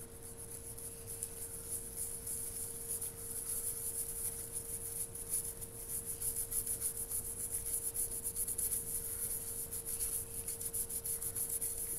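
Toothbrush bristles scrubbing baking-soda paste against a steel knife blade to scour off rust: quick, rhythmic scratchy strokes, several a second.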